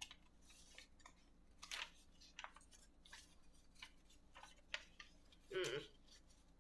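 Faint, scattered rustles and light taps of paper and a padded bubble mailer being handled, with near silence between them.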